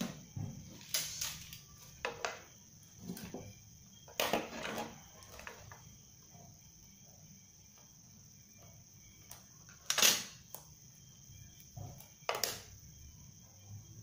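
Scattered clicks, knocks and scrapes of hand work at a wooden workbench: a stick and a plastic name-tag clip being handled and worked with a small hand tool, the sharpest knock about ten seconds in. Crickets trill steadily in the background.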